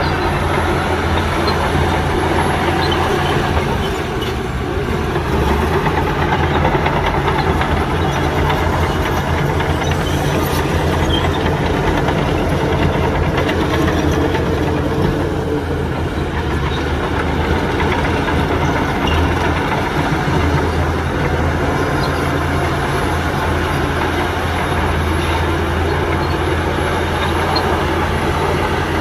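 Heavy diesel earthmoving machinery running steadily, with a continuous low engine drone.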